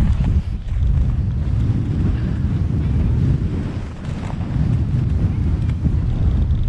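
Wind buffeting the microphone: a loud, dense low noise that rises and falls in gusts.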